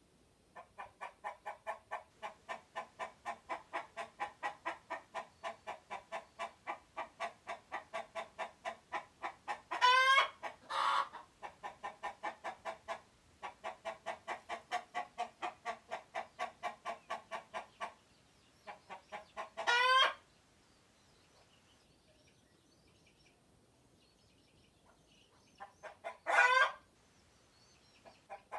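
Chicken alarm calling: long runs of rapid clucks, about four a second, broken by loud squawks that rise in pitch, about ten seconds in, near twenty seconds and once more near the end.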